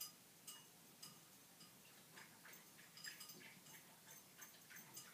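Near silence with faint, irregular light ticks and clicks, a few a second.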